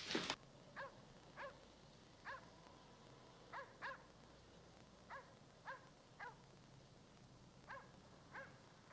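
A dog barking faintly: about a dozen short yaps, each falling in pitch, at uneven intervals.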